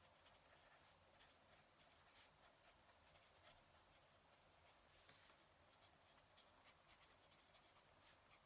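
Fountain pen nib scratching faintly across paper in short, irregular strokes, over a low hiss.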